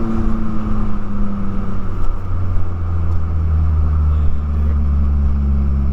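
A 2009 Mazda3's 2.3-litre four-cylinder engine running through a straight-piped exhaust with a racing header. Its pitch sinks during the first couple of seconds after a rev, then settles into a steady, loud low drone.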